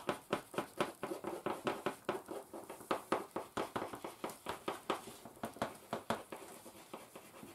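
Wax crayons scratching on paper over a table in quick short strokes, several a second, as fur and shadow lines are shaded in.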